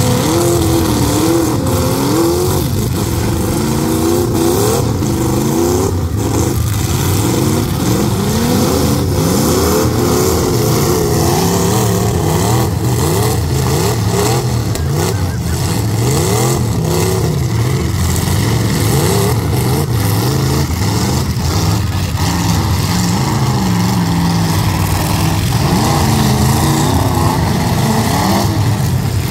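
Several demolition-derby truck engines revving up and down against each other, with scattered sharp bangs of impacts.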